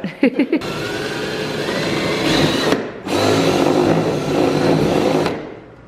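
Power drill running in two bursts of about two seconds each, its motor whine rising in pitch during the first.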